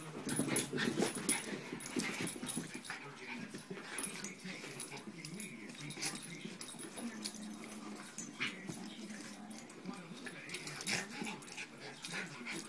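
Two small dogs play-wrestling, making dog noises as they tussle. The sounds are loudest in the first couple of seconds.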